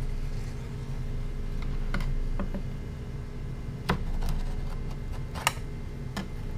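Butcher's knife cutting through a side of pork along a score line, separating the loin from the belly. A few light, irregular clicks and taps come as the blade meets rib bone and the plastic cutting board, over a steady low hum.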